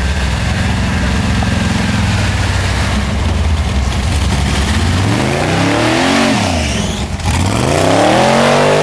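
Jeep Wrangler's engine working steadily as it crawls through deep mud, then revving up and back down twice in the second half.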